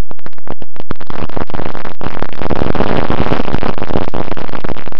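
Wind buffeting the microphone of a camera riding on the nose of a model plane in flight, heavily distorted. It starts as scattered crackles, thickens into a dense, loud rush about a second in, and breaks back into crackles near the end.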